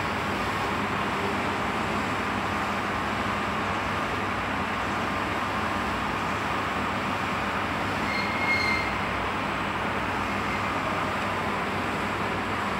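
Diesel engine running steadily, a constant mechanical drone with a low hum. A short high whistle-like tone sounds briefly about two-thirds of the way through.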